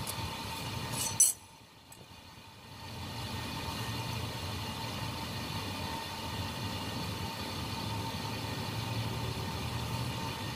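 A machine running steadily with a constant hum. About a second in there is a sharp click, the sound drops away for a moment, then builds back up.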